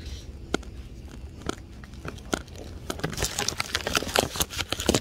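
Plastic shopping bags crinkling and rustling right against the microphone as they are carried. The sharp crackles come scattered at first and grow dense in the second half.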